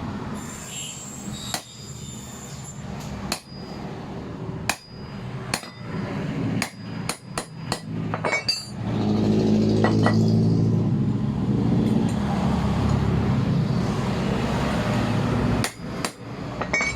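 Hammer blows on metal, about a dozen sharp strikes, several in quick succession, driving the bearing out of an air-conditioning compressor pulley. From about halfway through, a loud steady low mechanical hum runs under it, and two more strikes come near the end.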